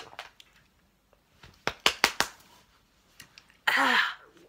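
A woman's disgusted reaction to a shot of bad-tasting vodka. A few sharp mouth clicks come about two seconds in, then a loud, harsh gagging cry near the end.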